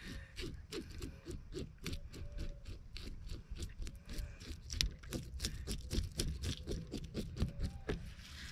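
A metal spoon scraping the scales off a small black sea bass: quick, repeated rasping strokes, about four or five a second.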